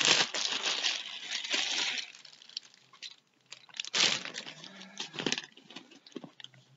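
Clear plastic packaging bag crinkling and rustling as a wrapped item is handled, in bursts: a long stretch over the first two seconds, then another strong burst about four seconds in.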